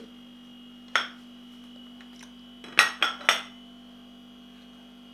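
Steady electrical hum with four sharp clicks: one about a second in and three in quick succession near three seconds.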